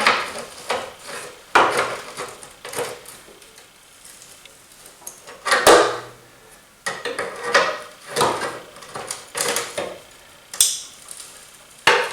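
Irregular sharp metallic clanks and knocks, tools against the steel bumper, while a rusted bumper bolt is being worked to break it loose. The bolt is not turning.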